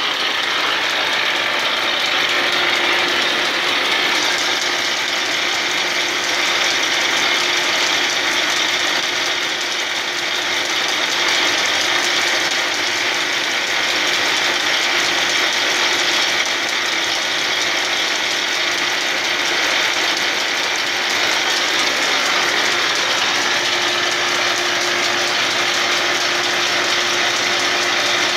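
American sash sticker, an old flat-belt-driven woodworking machine, running with its cutter knives removed, its boring spindle turning and its feed engaged: a steady mechanical running sound of gears and belts, with a steady hum under it.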